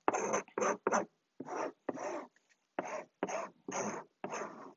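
Wooden paint stir stick rubbed back and forth over a glue-wet fabric doily on a fabric-covered wing, about nine short scraping strokes at roughly two a second with a brief pause midway, working the glue in and the bubbles out.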